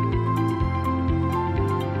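Background music: held, gentle notes over a soft beat of about two strokes a second.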